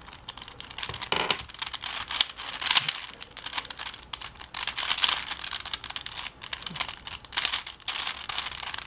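Plastic twisty puzzle being turned quickly by hand while it is solved: a rapid, irregular stream of plastic clicks and clacks.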